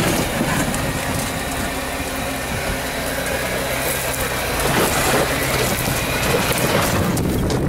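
Jeep Wrangler TJ rock crawler's engine running at low speed as it crawls over rock. Scraping and crunching from the tyres and brush grow louder in the second half.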